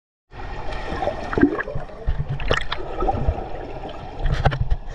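Muffled underwater gurgling and bubbling, with a few sharp pops, as air bubbles rush past a submerged camera in a swimming pool.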